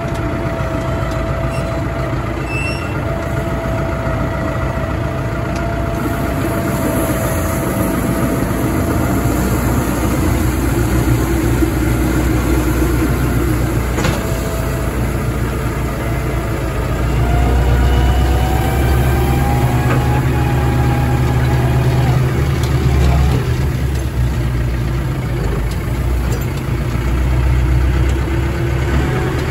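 Heavy engine running steadily, with the low rumble growing heavier for a few seconds past the middle.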